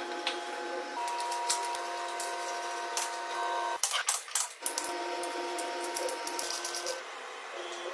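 Sharp metallic clicks and taps from aluminium motorcycle engine parts and a socket ratchet being handled and fitted, coming in quick runs. Under them is soft background music with held notes that change every second or two.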